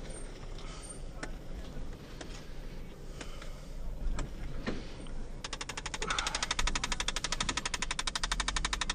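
Low rumble inside a car cabin with scattered clicks and knocks; about two-thirds of the way in, a fast, very even clicking of more than ten ticks a second starts and is the loudest sound.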